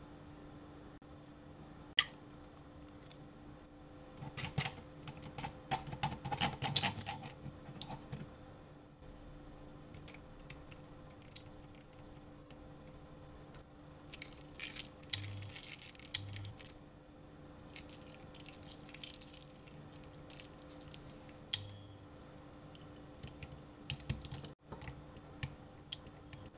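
Quiet cooking sounds from rice paper in a dry frying pan: small crisp clicks and taps as an egg is added and spread over the rice paper and toppings are scattered on, coming in a few short clusters with quieter stretches between.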